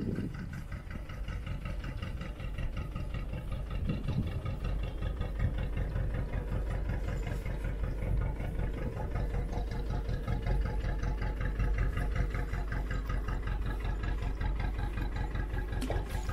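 Small fishing boat's inboard engine running at low speed close by, with a steady, even, rapid beat.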